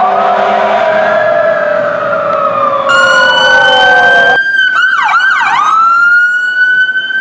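Fire apparatus sirens. First a hazmat truck's siren falling slowly in pitch with a steady horn blast under it; then, after an abrupt change about three seconds in, a fire chief's SUV's electronic siren wailing, with a few quick dips and rises in pitch near the middle.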